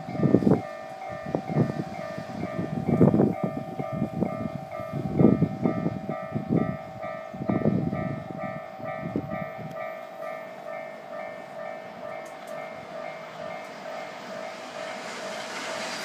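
Japanese level-crossing warning alarm ringing steadily in a rapid, evenly repeating electronic 'kan-kan' pattern, the signal that a train is approaching. Irregular low rumbling bursts come through the first ten seconds, and a rising hiss builds near the end.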